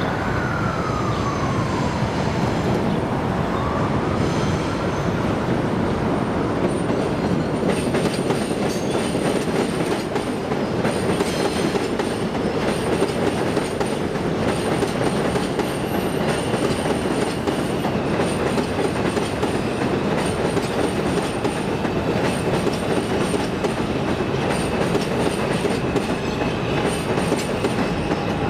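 Elevated subway train running on the steel el structure overhead: a steady loud rumble with wheels squealing. A squeal falls and then rises in pitch in the first few seconds, and thin, high, steady squeals come in later.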